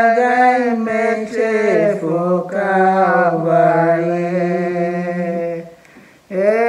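Women's voices singing an Igbo hymn unaccompanied, a repeated chorus on the word "Calvary", with long held notes. The singing breaks off for a moment near the end, then starts again.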